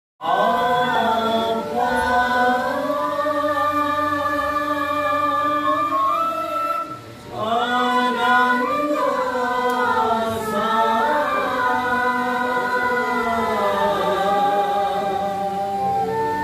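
A group of men and women singing a devotional prayer song together in long, held, gliding lines, with a short break about seven seconds in.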